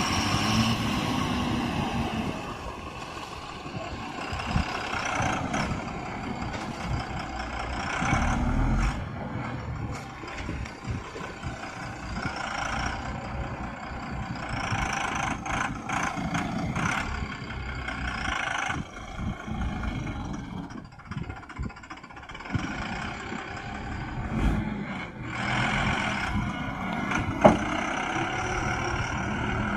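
Tata backhoe loader's diesel engine running under varying load, its pitch rising and falling as the machine works. There is a sharp knock near the end.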